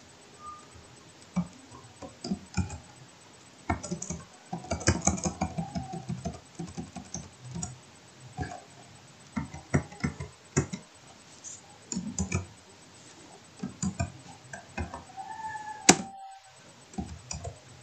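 Computer keyboard typing: irregular keystroke clicks with short pauses, a quick run of keys about four to six seconds in, and one loud sharp click near the end.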